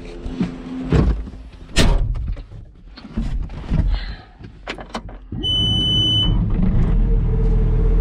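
Knocks and clatter of someone climbing into a skid steer's cab. About five seconds in a short high warning beep sounds while the skid steer's engine starts, rising and then settling into a steady idle.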